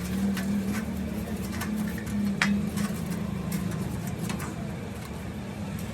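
A machine running with a steady low hum, with a few light metallic clicks and taps; the sharpest comes about two and a half seconds in.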